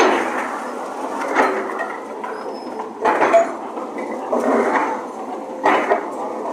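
Demolition noise: broken concrete and masonry clattering and grinding as an excavator works a collapsed building, with a few louder crashes.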